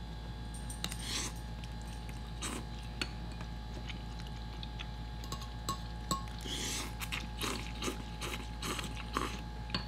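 Two people eating ramen: short noodle slurps and scattered clinks of forks and spoons against ceramic bowls, with a longer slurp about two-thirds of the way in, over a steady low hum.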